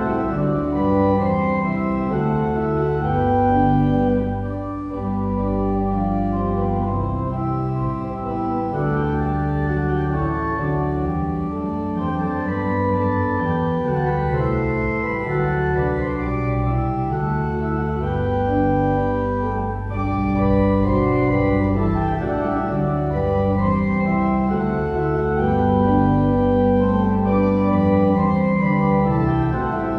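Organ music playing held chords over a bass line, the notes changing every second or so.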